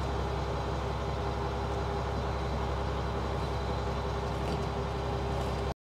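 Fishing boat's diesel engine running steadily at a constant low drone. It cuts off abruptly just before the end.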